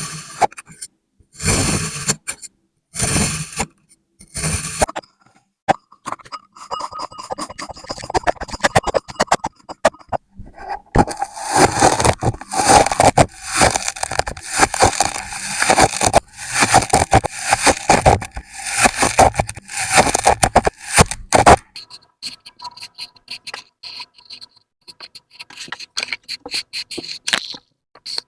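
Kinetic sand being scraped and pressed: a few separate scraping strokes, then a long run of crunchy scraping strokes about two a second, then fainter crackling near the end.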